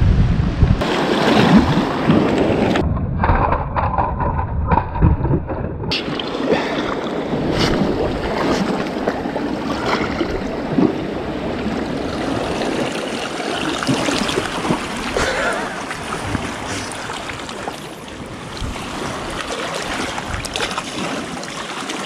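Wind buffeting the microphone over sea waves washing against a rocky shore, with scattered knocks and rustles of movement on the rocks. For a few seconds about three seconds in the sound goes muffled.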